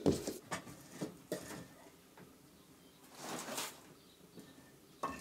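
Wood fire in a tiled kitchen stove's firebox, crackling: a few scattered sharp pops, and a brief hiss about three seconds in.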